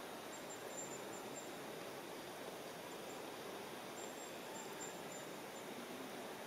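Faint, steady outdoor meadow ambience, an even hiss. A faint high-pitched trill comes through twice, in the first second or so and again around four to five seconds in.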